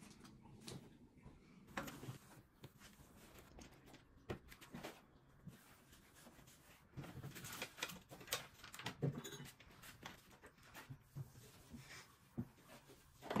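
Faint, scattered taps, knocks and rustles of household cleaning: bedding smoothed and surfaces wiped down with a cloth, with small objects handled and set down.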